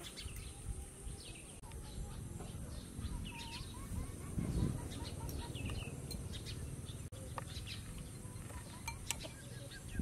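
Birds chirping over and over in short, mostly falling calls, over a steady high-pitched whine and a low rumbling background.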